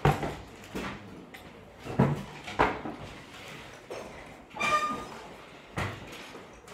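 A few short, sharp knocks and a brief high-pitched squeak about four and a half seconds in.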